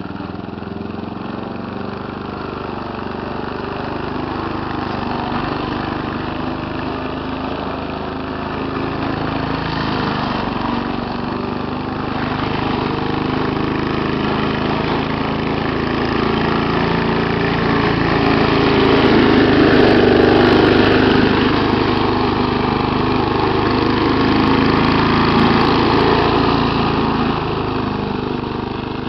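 A 3.5 HP lawn mower's small petrol engine running steadily, its sound swelling louder through the middle and easing off a little near the end.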